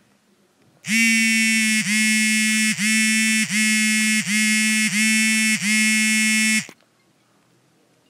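An iPhone ringtone playing as a preview: a single buzzy tone held at one pitch and pulsing about seven times, each pulse a little under a second long. It starts about a second in and cuts off abruptly near the end.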